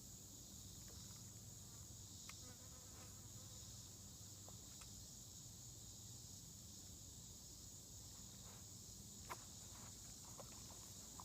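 Faint, steady high-pitched insect chorus, with a few faint scattered clicks.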